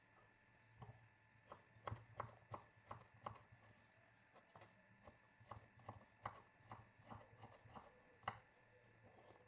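Kitchen knife slicing a cucumber on a wooden cutting board: quiet, irregular knocks of the blade meeting the board, about two or three a second. The knocks start about a second in and stop near the end.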